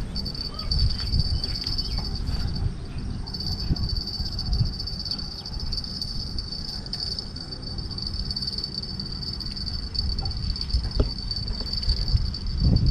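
Insects chirping in a steady high-pitched drone that dips briefly about two seconds in, over a steady low rumble.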